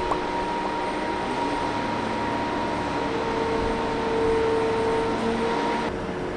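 Heavy machinery running steadily, with a held whining tone that comes in about halfway through and stops shortly before the end.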